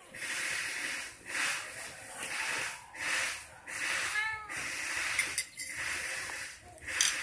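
Domestic cat meowing once, briefly, about four seconds in, over a hissing noise that comes and goes about once a second.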